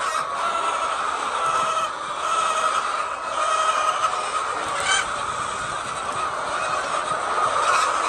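A large flock of white laying hens clucking and calling together in a dense, steady chorus.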